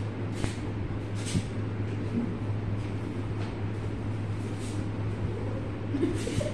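Steady low hum with a faint background haze, broken by a few soft, brief rustles.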